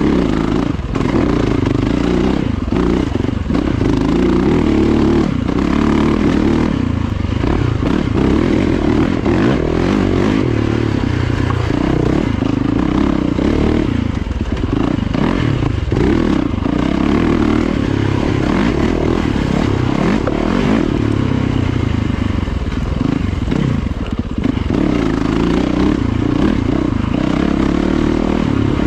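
Yamaha dirt bike engine under load on a woods trail, heard on board; the revs keep rising and falling with the throttle, with a few brief dips.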